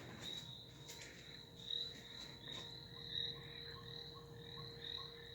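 Sound machine playing a night nature soundscape of frogs and crickets: a steady high cricket trill with short frog-like chirps repeating about three times a second.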